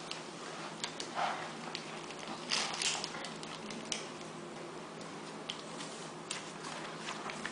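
A plastic syringe, needle and their wrappers being handled: scattered light clicks and short rustles, the loudest a rustle about two and a half to three seconds in.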